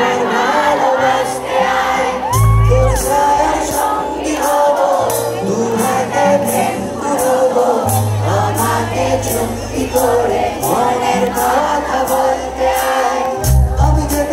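Live band playing through a PA: a singer over drums, electric guitars and keyboard, with crowd noise from the audience, heard from within the crowd.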